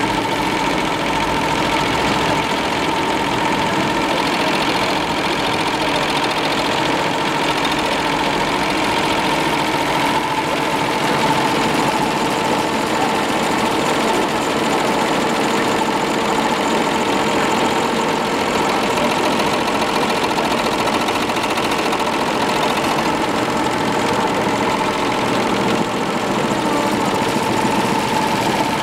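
Two-head high-speed tubular embroidery machine stitching, its needles clattering in a steady, rapid, even rhythm with a steady whine running under it.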